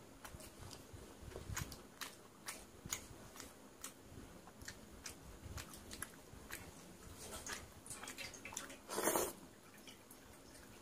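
Close-up eating sounds: many small wet clicks and squelches from chewing and from fingers working water-soaked rice (panta bhat). One louder noisy burst about half a second long comes just after nine seconds in.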